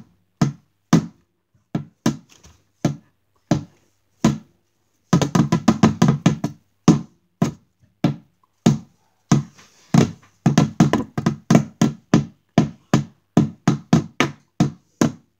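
Two lollipops used as drumsticks beating on an upturned trash bin like a drum. There are single knocks about two a second, then a fast roll about five seconds in, another rapid run of strikes around ten seconds in, and a steady beat near the end.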